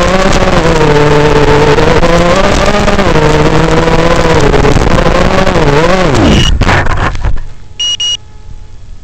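Brushless motors and propellers of a 4S Realacc X210 FPV racing quadcopter whining, the pitch rising and falling with the throttle, then dropping away and cutting off as the quad comes down in the grass. Two short high beeps follow just after.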